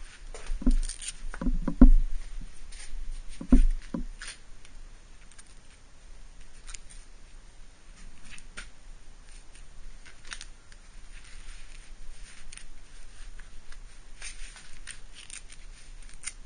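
Honda CRF250R dirt bike being kick-started: a few heavy thumps of the kick lever in the first four seconds, with the engine not catching, then scattered light clicks. The bike won't fire, which the owner puts down to bad 86-octane gas.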